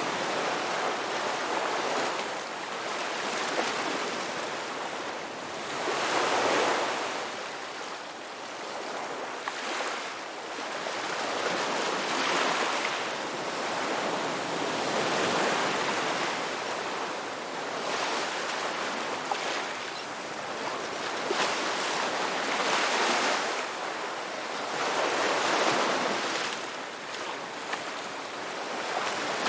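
Sea waves washing onto the shore in repeated surges, one every few seconds, with a steady hiss of surf between them.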